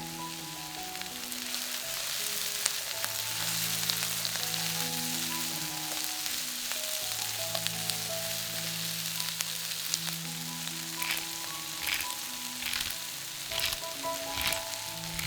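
Food frying with a steady sizzle, with a few louder crackles in the last few seconds. Soft background music plays underneath.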